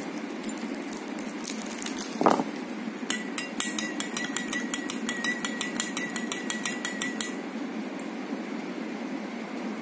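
A metal spoon stirring inside a drinking glass. A single knock about two seconds in, then quick clinks of the spoon against the glass, about five a second for some four seconds, with the glass ringing.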